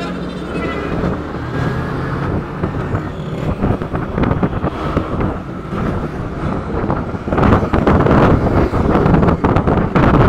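Engine and road noise while riding a motorcycle through traffic, with wind rushing over the microphone. The wind gets louder about seven seconds in.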